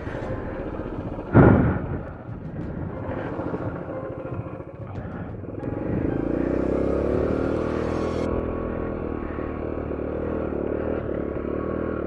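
Honda CT90's small single-cylinder four-stroke engine running, with one loud thump about a second and a half in. Near six seconds it is revved up and settles into a steady, faster run.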